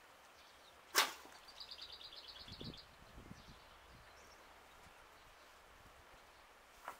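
A single sharp crack about a second in, followed by a short, rapid high trill of about a dozen notes from a small bird, and a smaller click near the end.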